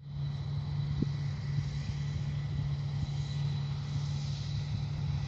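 Farm machinery engine running with a steady low drone, with a thin steady high whine above it.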